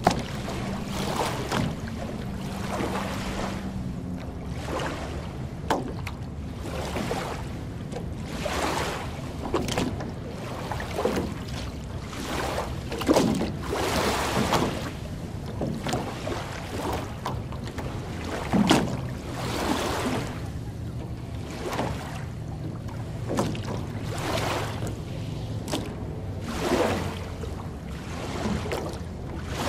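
Small waves lapping and washing up on a sandy lake shore, one wash every second or two, with a steady low hum underneath.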